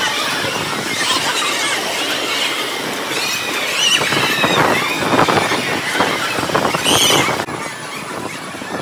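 A theme-park ride car in motion: dense rattling, rushing noise with high wavering squeals, loudest from about four to seven seconds in and easing off after about seven and a half seconds.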